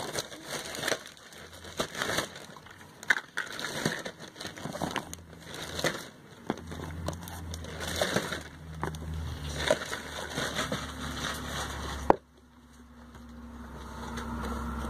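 Handling noise as cosmetics are cleared off a table: packaging crinkling and plastic bottles and tubes knocking in irregular clicks and rustles. A sharp click about twelve seconds in, after which only a low hum remains.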